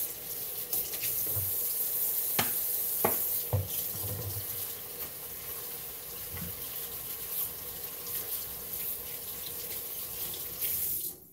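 Kitchen tap running steadily into a sink, with a few knocks and clinks about two to four seconds in. The water shuts off suddenly near the end.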